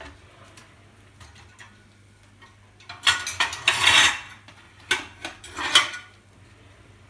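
Ceramic plates clattering against a wire dish rack as one is pulled out, with a few light clicks and then two bursts of rattling, about three and five seconds in.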